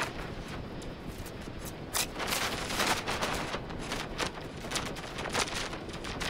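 Crackling and clicking handling noise on the microphone: irregular sharp clicks over a steady hiss, busiest about two to three seconds in.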